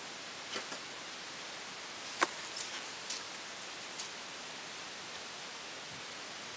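A few light clicks and knocks as a bucket seat is handled and fitted into a car, the sharpest about two seconds in, over a steady hiss.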